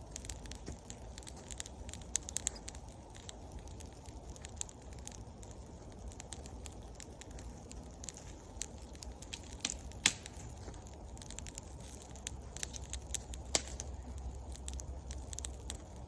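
Birch-wood campfire crackling, with scattered sharp pops, the loudest about ten and thirteen seconds in.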